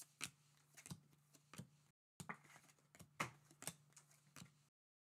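Topps baseball cards flipped one at a time through a hand-held stack: faint, irregular clicks and snaps of card stock, two or three a second.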